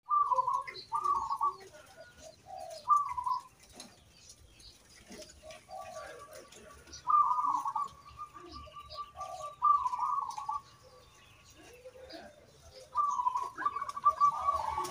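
Zebra dove (perkutut) singing: its bubbling, rolling coo phrases come again and again, about six times, with gaps of one to three seconds between them, some phrases ending in a long rapid trill.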